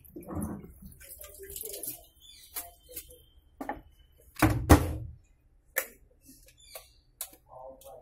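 Handling noise: scattered clicks and knocks, with one loud thump about halfway through.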